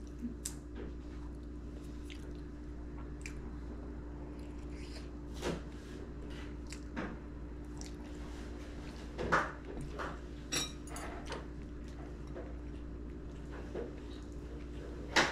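A person eating a meal: quiet chewing with a few sparse clicks and taps of utensils on dishes, the clearest a little after nine seconds and near the end. A steady low hum runs underneath.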